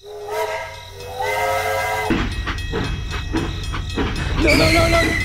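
Toy steam locomotive's train-whistle sound, sounding twice, then a rhythmic clatter of the train running with a low rumble, and another short whistle near the end.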